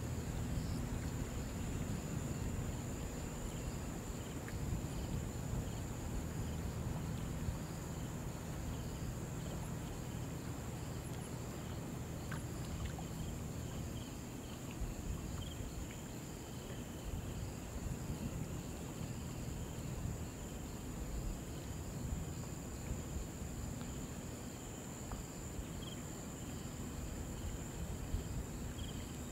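Insects chirring in a steady high-pitched drone over the low, steady rush and lapping of a shallow river.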